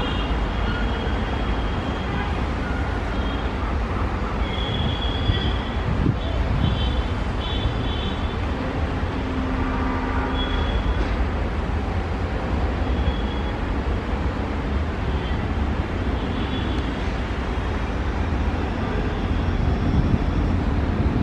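WDG4 diesel locomotive's EMD 16-cylinder two-stroke engine working hard in a high notch as it pulls a passenger train away from a stop, a steady deep rumble.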